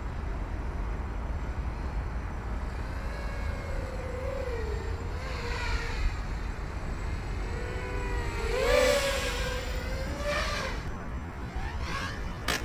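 Whine of a racing quadcopter's brushless motors (EMAX 2208) with 5-inch props, rising and falling in pitch with the throttle as it flies. It is loudest about nine seconds in, over a steady low rumble.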